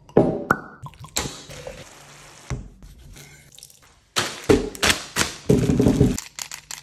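A rapid run of close-up kitchen prep sounds: sharp clicks and taps, liquid pouring and dripping, and a knife cutting fruit and a potato on a wooden chopping board. The loudest sounds come about four to six seconds in, with quick repeated strokes near the end.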